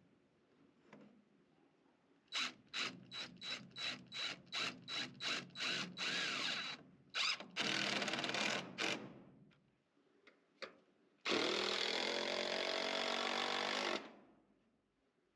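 Cordless drill driving screws into wood. It starts with a run of short trigger pulses, about three a second, then runs in longer spells, and ends with one steady run of a few seconds that stops suddenly.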